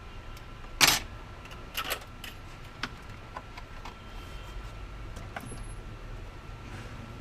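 Clatter of small hard objects being handled: one sharp clack about a second in, a lighter double clack a second later, then scattered light clicks, over a faint steady high tone and low hum.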